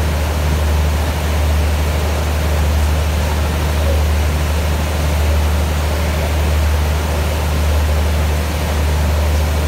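Diesel-hauled passenger train standing at the platform: a steady low engine drone with a constant hiss over it.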